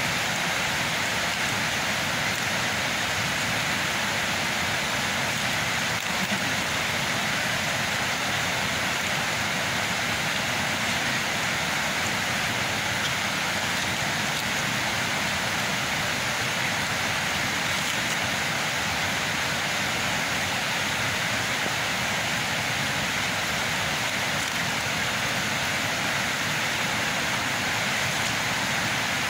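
A steady, even rushing hiss that does not change at all, with no separate knocks or voices standing out.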